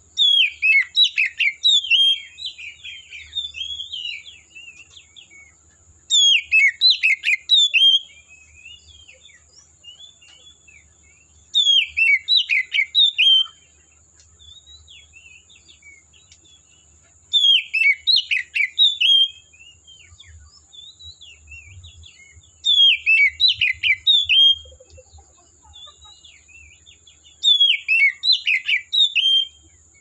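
Oriental magpie-robin singing: six loud bursts of rapid, sweeping whistled notes, each about two seconds long and coming roughly every six seconds, with softer scattered notes between them.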